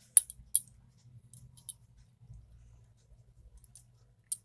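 Hands folding and pressing momo dough on a wooden board make short, sharp clicks: two just after the start, a few fainter ones about a second and a half in, and one more near the end. A faint low hum runs underneath.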